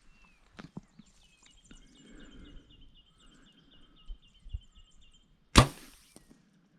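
A single bow shot about five and a half seconds in: a sharp, loud snap of the string as the arrow is loosed at a rabbit, a near miss that only grazes it.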